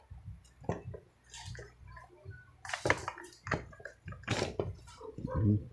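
Hands handling and pulling apart a Makita electric drill's plastic housing: scattered short clicks, knocks and scraping.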